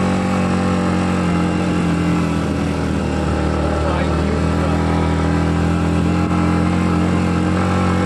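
Yamaha MT-15's single-cylinder engine running at steady low revs as the motorcycle rides slowly, picking up a little speed.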